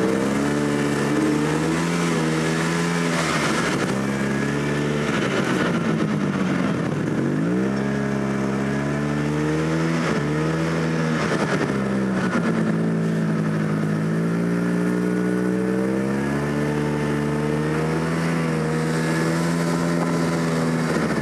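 Snowmobile engine running under way, heard from on board. Its pitch dips and climbs a few times as the throttle changes, most deeply about seven seconds in.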